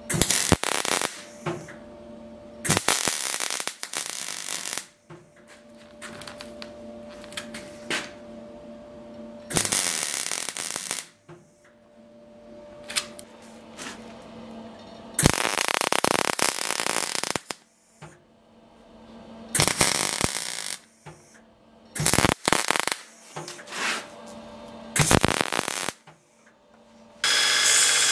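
Gas torch flame hissing in repeated bursts of a second or two while it heats the steel pieces of a dagger guard, with a faint steady hum between the bursts. Near the end a belt grinder runs steadily, grinding steel.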